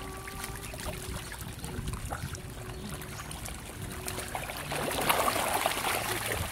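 Water splashing and trickling as a dense shoal of fish churns the surface of a pond, with a busy patter of small splashes. It grows louder about five seconds in.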